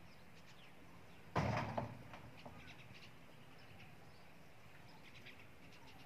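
Faint chirping of small birds, with a brief loud rustle about a second and a half in that lasts about half a second.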